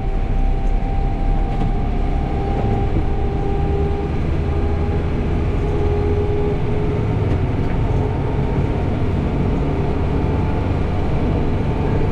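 Backhoe loader's diesel engine running steadily under way, heard from inside the cab as a low rumble, with a faint steady whine that fades out about two-thirds of the way through.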